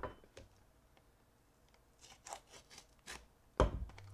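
A knife scratching and scraping at the plastic wrap on a cardboard trading-card box, in a few short rasping strokes, with a loud thump of the box being knocked or set down near the end.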